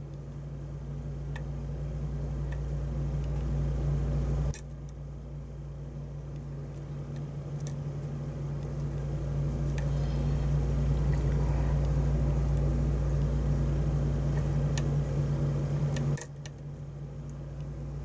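A steady low hum that slowly grows louder and drops off suddenly twice, with faint small clicks of a steel lock pick working the pins of a pin-tumbler cylinder under tension.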